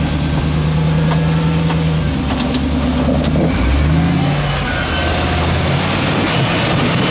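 Jeep-bodied rock crawler's engine running under load as it climbs a rock ledge. It revs up briefly about halfway through, then drops back to a low, steady pull.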